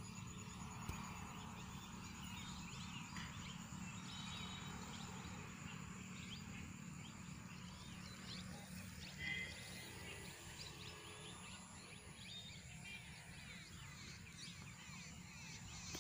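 Open-field ambience: scattered short bird chirps and insect calls over a low steady rumble, with one brief louder call about nine seconds in.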